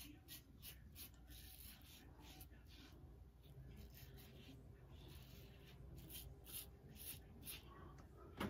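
Faint scraping of a Gillette Rocket HD 500 safety razor cutting through lathered stubble, in a run of short strokes, two or three a second.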